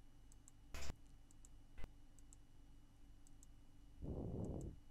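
Faint computer mouse clicks, small high ticks in quick press-and-release pairs, with a sharper knock about a second in and another click near two seconds. A short low rush of noise on the headset microphone near the end.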